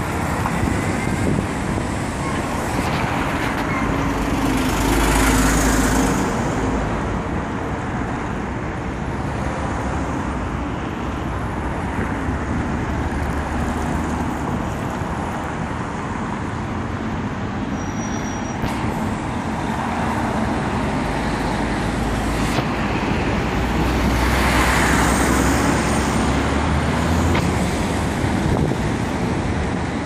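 Road traffic on a busy multi-lane road: a steady rumble of cars and trucks, swelling twice as vehicles pass close by.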